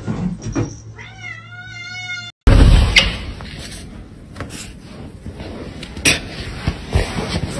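A domestic cat's drawn-out, wavering meow lasting about a second. It cuts off abruptly, and a noisy stretch with scattered knocks follows.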